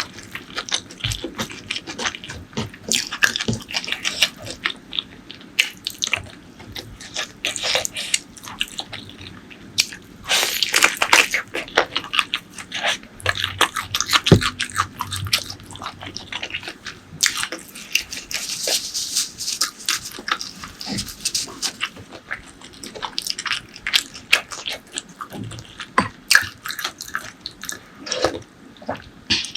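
Close-miked eating sounds: chewing, lip-smacking and slurping through mouthfuls of pork leg curry and rice, a dense, irregular run of short clicks.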